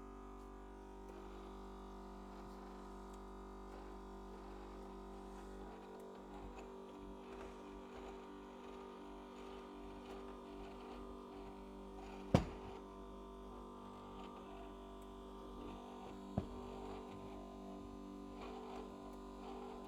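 Faint steady hum made of several held tones that never change, broken by two sharp clicks, about twelve and sixteen seconds in.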